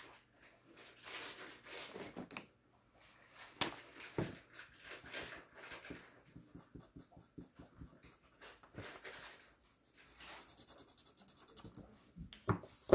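Twin-tip marker scratching across paper in short, irregular colouring strokes, with a sharper knock or two near the end.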